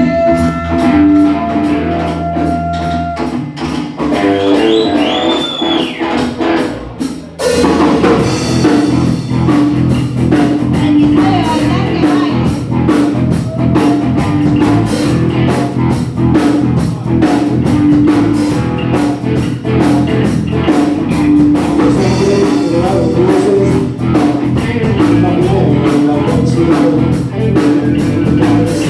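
Rock and roll band playing a boogie live on electric guitar and drum kit. It opens with held notes and bent guitar notes, then the full band comes in with drums about seven and a half seconds in and keeps a steady, driving beat.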